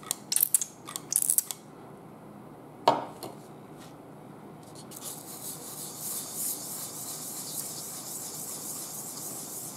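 A pump oil can clicks several times as it squirts oil onto 1000-grit wet sandpaper, with a single knock about three seconds in. From about five seconds in comes a steady rubbing hiss: a hydrostatic transmission's cylinder block being wet-sanded in small circles on the oiled paper, lapping out the wear grooves on its face.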